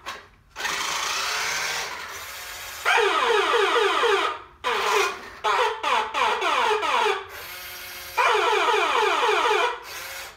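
1988 New Bright rescue fire truck toy's electronic siren sound effect from its small speaker: bursts of rapidly repeating falling electronic tones, some long and some cut into short pulses about midway. Between the bursts there are quieter stretches of the toy's drive motor running as the truck rolls and turns.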